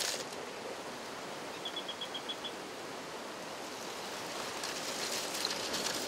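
Steady rushing of a stream, with a quick run of high chirps about two seconds in. From about four and a half seconds on there is gravel rattling and scraping as it is shovelled and shaken through a sieve.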